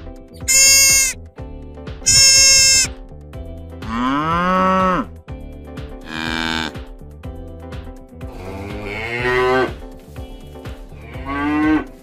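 Two short, high, harsh deer calls in the first few seconds, then cattle mooing four times, each moo a separate call that bends in pitch. Faint background music runs underneath.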